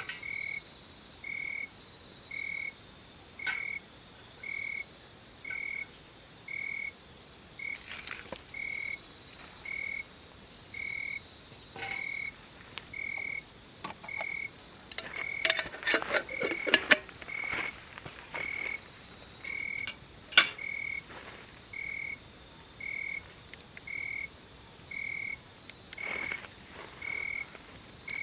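A frog calling over and over, a short clear note repeated evenly a little more than once a second. A cluster of clicks and rustles comes about halfway through, and a single sharp click follows a few seconds later.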